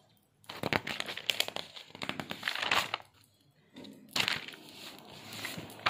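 Paper rustling and crinkling as notebook pages are handled and turned, in two spells of crackly rustle with a short quiet gap between.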